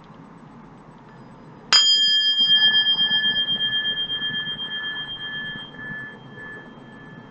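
A small metal bell struck once about a second and a half in, ringing with several clear high tones that waver in a slow pulse and fade away over several seconds, over a steady low background hum.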